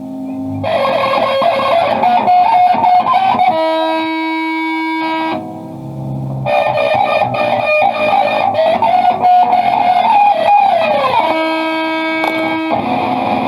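Instrumental guitar music, likely electric guitar: busy runs of quick notes alternate with long held notes, and there is a downward slide about eleven seconds in.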